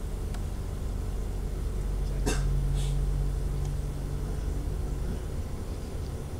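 Alstom Coradia LINT diesel railcar running, heard from inside the car: a steady low rumble of engine and wheels on the rails, with a single sharp click a little over two seconds in and a steady low hum from about two to five seconds.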